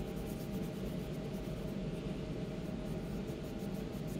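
Paper towel soaked in nail polish remover rubbing across painted fingernails, a soft scratchy scrubbing as the polish is wiped off, over a steady low room hum.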